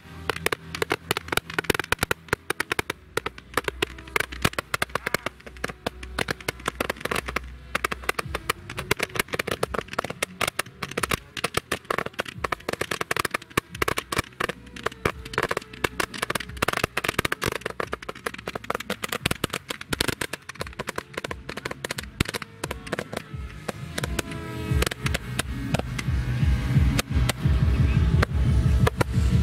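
Handheld fireworks firing, a dense, rapid barrage of crackling pops and small bangs. About six seconds before the end, music with a heavy steady beat comes in over it.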